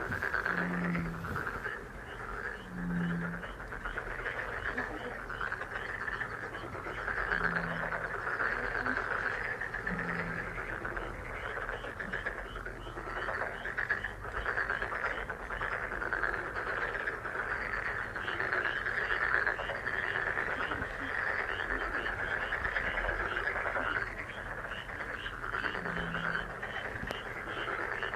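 A dense chorus of many frogs calling without a break, with rapid repeated higher notes running through it and, a handful of times, a short deeper call standing out.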